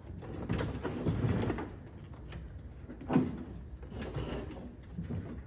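Scraping, rumbling and knocking of heavy items being handled for unloading, with one sharper knock about three seconds in.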